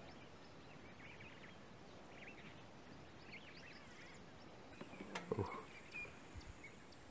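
Faint outdoor bush ambience with scattered short bird chirps, and one sharp knock a little past five seconds in.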